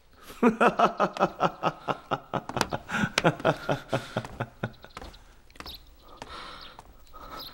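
A man laughing loudly in a fast run of short 'ha-ha' pulses that lasts about four and a half seconds, then trails off into quieter, scattered sounds.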